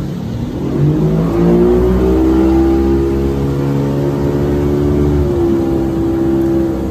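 A boat's outboard motor throttling up, its pitch rising about a second in, then running steady at speed.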